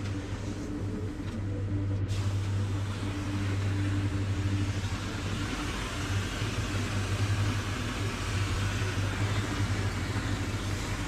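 Steady low mechanical hum with a rushing noise over it, running evenly throughout.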